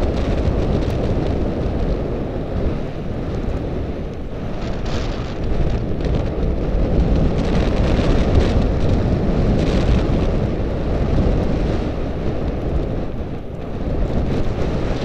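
Steady wind noise buffeting the microphone of a camera on a moving electric bike, a loud low rumble that swells and eases slightly.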